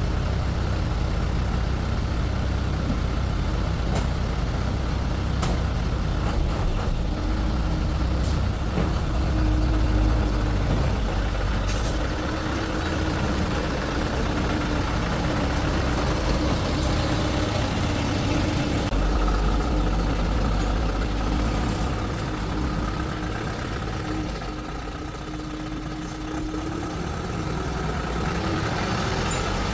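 A vehicle engine running steadily at idle, a low rumble with a steady hum over it. A few sharp clicks or taps come in the first twelve seconds.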